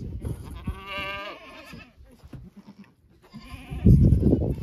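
Goat kids bleating: one wavering call about a second in, then a louder call near the end.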